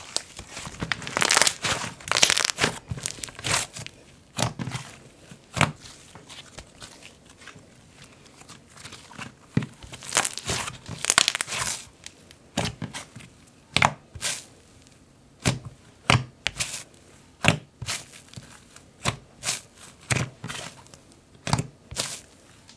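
Soft cloud cream slime being stretched, folded and pressed by hand: crackling, tearing sounds as it pulls apart, with denser stretches of crackling about a second in and again around ten seconds in, and single sharp pops about once a second toward the end.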